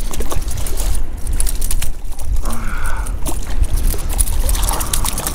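A hooked black drum thrashing and splashing at the water's surface beside a kayak, heard as repeated sharp splashes over a steady rumble of wind buffeting the microphone.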